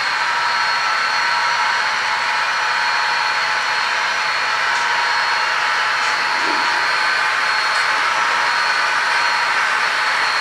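HO scale model diesel locomotives running in a consist, giving a steady mechanical running noise with a high steady whine over it.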